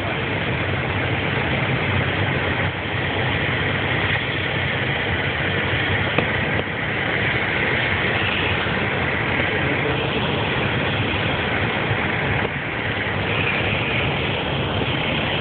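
Steady drone of a single-engine light aircraft's piston engine and propeller, heard inside the cabin over a constant rush of air.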